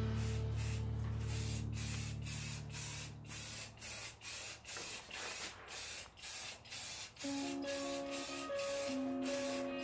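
Aerosol spray paint can hissing in a long series of short, quick bursts, about two a second, as white paint is sprayed onto a car's engine bay.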